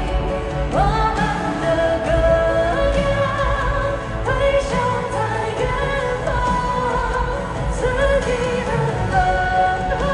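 Live pop concert music: a high male voice sings long held notes, each sliding up into pitch, over band accompaniment with a steady bass. New notes begin about a second in, about four seconds in and near the end.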